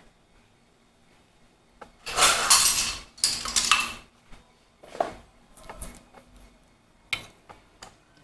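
Kitchen handling noise around a stainless steel mixing bowl: a loud clattering scrape of about two seconds, starting about two seconds in, then several lighter knocks and clinks of utensils and containers being set down.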